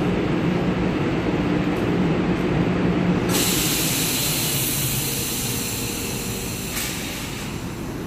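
MBTA Blue Line subway train standing at the platform with its equipment giving a steady low hum that slowly fades. A little over three seconds in, a loud air hiss starts suddenly and cuts off sharply about three and a half seconds later, as the train switches its traction power between third rail and overhead wire.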